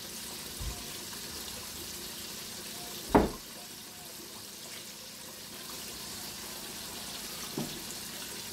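Chicken pieces deep-frying in a large pot of hot oil, a steady bubbling sizzle, with a loud knock about three seconds in and two fainter knocks.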